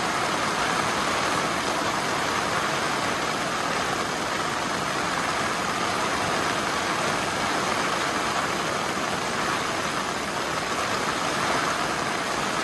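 Steady rain falling, a continuous even noise with no breaks.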